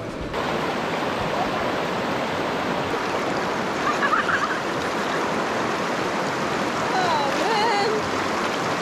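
Shallow river water rushing over rocks with a steady hiss around a person sitting in the current. Short bits of a voice come through about halfway and again near the end.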